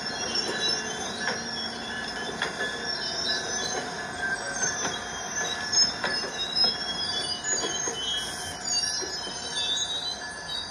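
Train wheels squealing against the rails as the cars roll past: high, wavering squeals over a steady rolling rumble, with a few sharp clicks.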